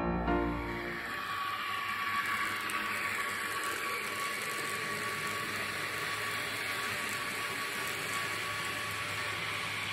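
N-scale model BR E94 electric locomotive running with a freight train: the small electric motor whirring steadily with a continuous tone, over the noise of the wheels running on the track.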